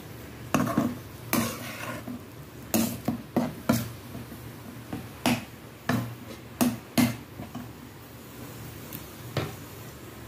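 A perforated steel spatula scraping and knocking against a kadhai while stirring a thick masala frying in oil. The strokes come irregularly, about once a second, with a pause of two seconds or so near the end.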